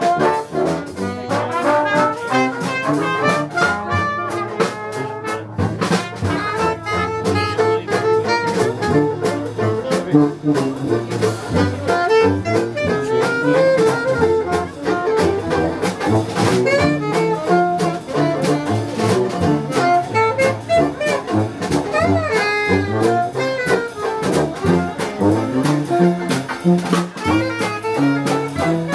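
Live Dixieland jazz band playing: trumpet, trombone, saxophone, tuba and drum kit in an up-tempo ensemble.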